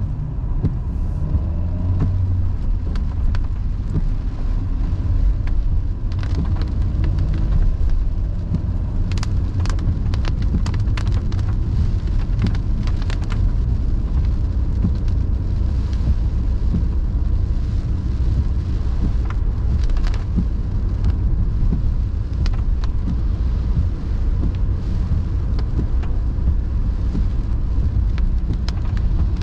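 Car cabin sound while driving on a wet road: a steady low rumble of engine and tyres, with scattered sharp taps of raindrops hitting the windshield and roof.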